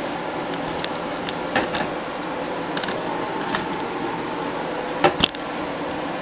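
Eggs cracked against the rim of a glass bowl: light taps here and there, then two sharp knocks in quick succession about five seconds in, over a steady background hiss.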